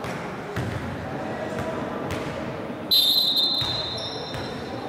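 A volleyball being struck, with a few sharp smacks, then a referee's whistle blast about three seconds in. The whistle is a single steady high note lasting about a second and is the loudest sound.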